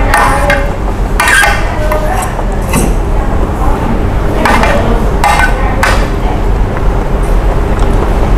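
Cutlery clinking and scraping against dishes about six times, over a steady low background rumble.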